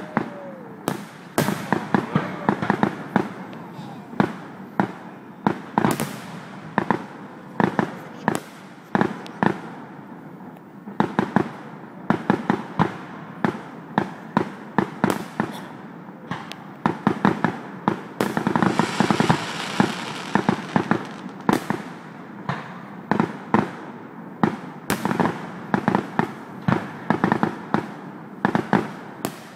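Aerial fireworks display: sharp bangs of shells launching and bursting, irregular but about one to two a second, with a denser stretch of hissing noise about two-thirds of the way through.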